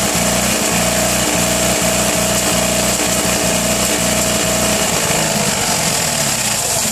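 The 1959 Fiat 500's 479 cc air-cooled two-cylinder engine runs rough on its first start after a rebuild, with a steady high whine over it. About five seconds in, the running turns more uneven.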